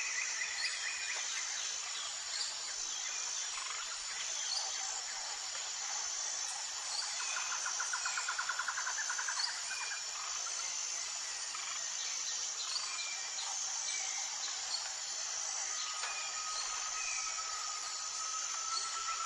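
Nature chorus of insects and birds: a steady high shrill with a regular pulsing beat, under scattered bird chirps and trills. A quick rattling trill comes about eight seconds in, and a long even whistle near the end.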